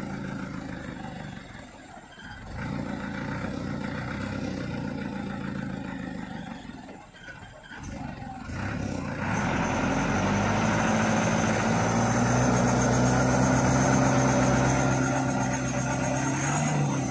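Engine of a loaded truck stuck in deep mud, revving and easing off twice, then held at high revs under load for several seconds as it tries to pull through, with a thin high whine on top; it drops off at the very end.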